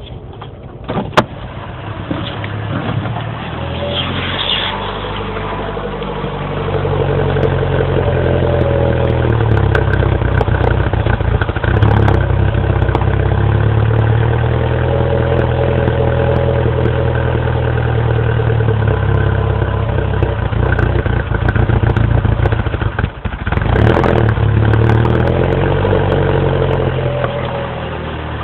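2007 Mini Cooper S's 1.6-litre four-cylinder engine running rough from a freezing cold start, its speed climbing over the first several seconds and then wavering unevenly, with a sharp click about a second in. It sags briefly near the end and picks back up: the cold-start stumble and surging idle that the dealer traced to condensation and ice in the throttle body housing.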